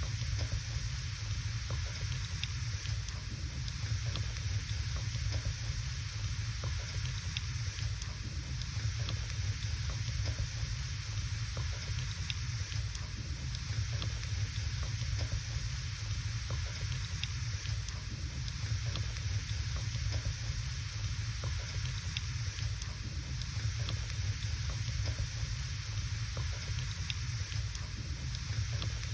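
Wood fire burning in a fireplace: scattered small crackles and pops over a steady hiss and low rumble.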